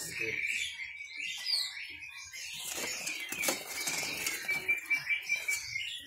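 Many caged songbirds chirping and twittering at once, with a thin, steady high whistle held through the second half and scattered sharp clicks.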